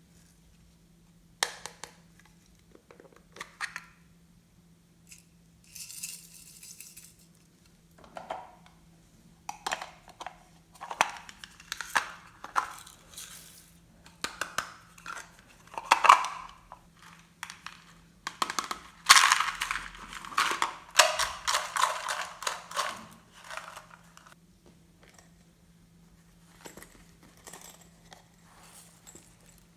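Glossy slime being squished, stretched and folded by hand, giving irregular wet clicks, pops and crackles. They come sparsely at first, grow busier and louder through the middle, then thin out again near the end.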